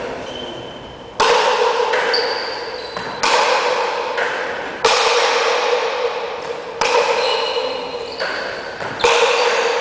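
Pelota paleta rally: a hard rubber ball struck by wooden paddles and slamming off the court walls. There are about nine sharp cracks, each ringing out with a long echo in an enclosed court.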